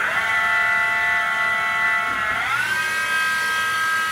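Mini milling machine spindle driven by a 750 W servo motor, running with a steady multi-tone whine. About two and a half seconds in, the whine glides up to a higher steady pitch as the spindle speeds up to near its top speed of about 3,900 RPM.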